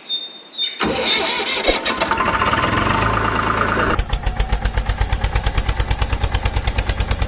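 An engine starting: a second or so of rough cranking noise catches, and from about four seconds in the engine idles with an even chug of roughly nine pulses a second.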